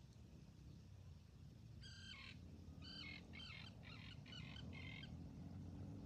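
A bird calling: one call about two seconds in, then a quick run of about five calls, over a faint steady low rumble.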